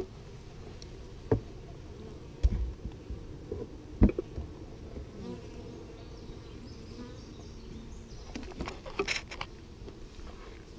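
Honeybees buzzing steadily in a close mass at the hive, with a few sharp knocks, the loudest about four seconds in, and a run of clicks near the end.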